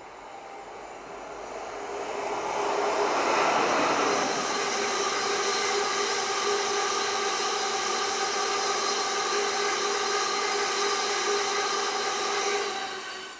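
Diesel freight locomotive approaching and passing at speed, loudest about three to four seconds in, followed by a long train of loaded box wagons rolling past with a steady clatter and a set of steady ringing tones from the wheels and rails. The sound fades out quickly near the end.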